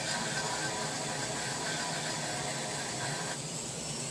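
Flexible-shaft power carver running with a Kutzall carbide burr, grinding into a wooden sculpture: a steady hiss of cutting with a motor whine, the higher whine dropping away about three seconds in.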